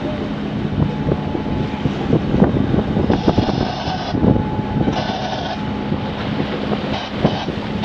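Boat engine running steadily at sea, a low even drone, with wind gusting on the microphone and choppy water splashing. There are two short bursts of hiss near the middle.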